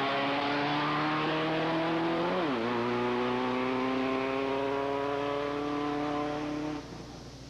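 Race car engine of an open sports car accelerating hard uphill under full throttle. Its pitch climbs steadily, dips with a quick upshift about two and a half seconds in, then climbs again through the next gear. The engine sound drops away suddenly near the end.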